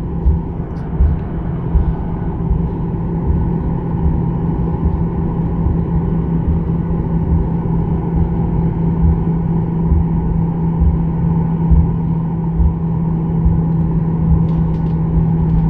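Cabin noise of a Boeing 737-800 taxiing on its CFM56 turbofans: a steady engine drone with an uneven low rumble and occasional bumps from the wheels rolling over the taxiway.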